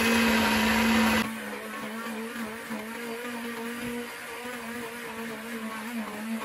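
Electric hand blender motor running steadily while it purees thick boiled lentils in a steel pot. The hum drops in loudness a little over a second in, then wavers slightly in pitch as the blade works through the mash.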